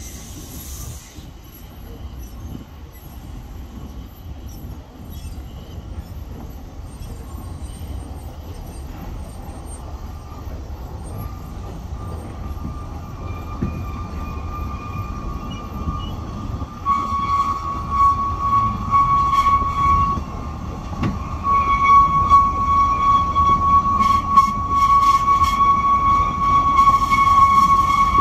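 Steam-hauled narrow-gauge train running on curved track: a low rumble that grows louder, and from about halfway a sustained high-pitched wheel squeal from the coaches rounding the curve, which breaks off briefly and comes back, with some clanks near the end.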